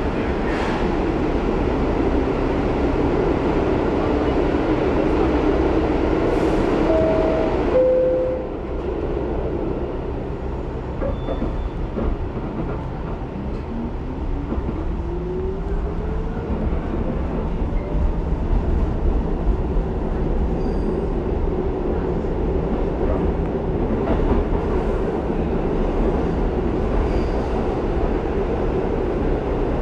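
R62A subway car heard from inside as it runs along the track: a steady rumble of wheels and car body. About eight seconds in, two short falling tones sound and the rumble eases. It then builds again under a rising whine.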